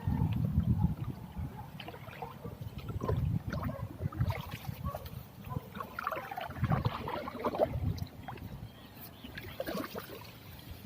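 Irregular water sloshing and splashing, with low thuds.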